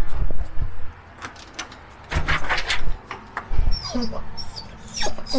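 A dog whining at a front door: several short, wavering whimpers from about four seconds in. There are loud thumps near the start and about two seconds in.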